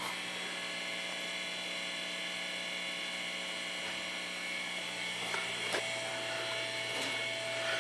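Steady electrical hum of equipment in a fire alarm and security equipment room, with a high whine over it. A couple of faint clicks come about two-thirds through, and a second, middle-pitched tone joins at the same point.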